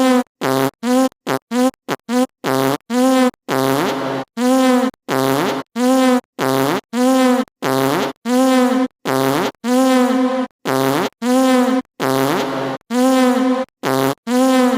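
A fart-like buzzing sound effect played over and over, about twenty identical bursts, each cut off abruptly. The first few come in rapid short stabs, then they settle to roughly two per second.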